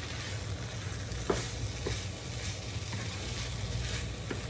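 Fried rice with shrimp and tomato sizzling in a nonstick frying pan while it is stirred and scraped around with a wooden spatula, toasting dry, with a few light clicks of the spatula on the pan. A steady low hum runs underneath.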